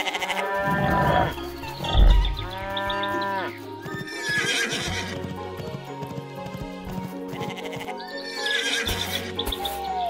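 Cartoon background music with farm animal calls over it: two pitched calls in the first few seconds, a low thump about two seconds in, and a falling whistle-like glide near the end.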